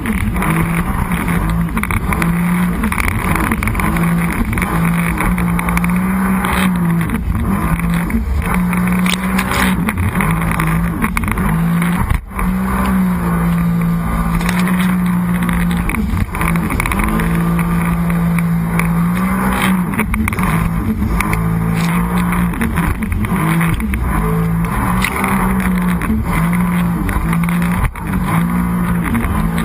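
Sea-Doo personal watercraft engine running hard, its drone stepping up and down in pitch with the throttle, over a steady rushing noise. The sound dips briefly twice, about twelve seconds in and near the end.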